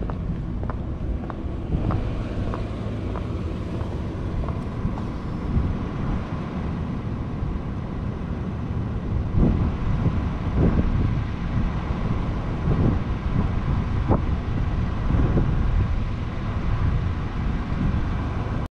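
Wind rumbling and buffeting on a body-worn camera microphone, with light clicks of cycling-shoe cleats on pavement, about two a second, during the first few seconds of walking. The rumble comes in stronger gusts from about halfway through.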